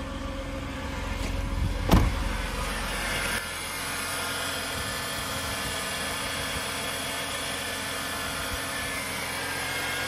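Mercedes W124 300E's M103 3.0-litre straight-six idling steadily, heard first from inside the cabin and then under the open hood, where the deep rumble drops away about three seconds in. A single sharp knock sounds about two seconds in.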